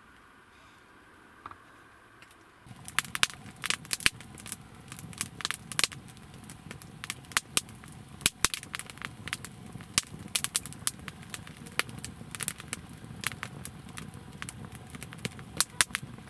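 Wood fire crackling, with frequent irregular sharp pops over a low rumble, starting about three seconds in after a faint, quiet start.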